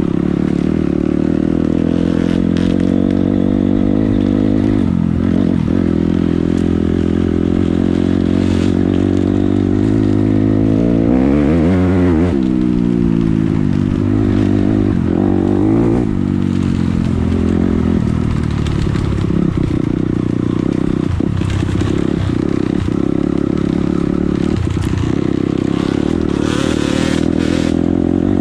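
250cc dirt bike engine running as it is ridden off-road, its note rising and falling with the throttle, with a clear sweep up and down in revs about halfway through. A few short knocks and clatters come in the later part.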